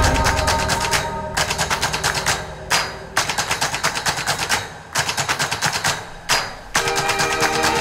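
Automatic gunfire in rapid bursts of about nine shots a second, several bursts broken by short pauses, over faint music.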